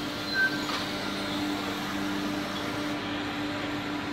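PESA ATR 220 Swing diesel railcar standing at the platform, its engine idling with a steady hum over a hiss. A short high tone sounds about half a second in.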